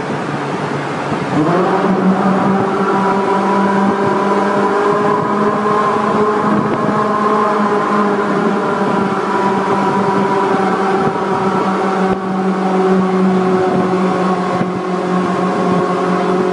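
Ferrari 458 Italia's naturally aspirated V8 revving up sharply about a second in, then held at steady revs while driving, heard from inside the car in a tunnel. The revs dip briefly twice near the end.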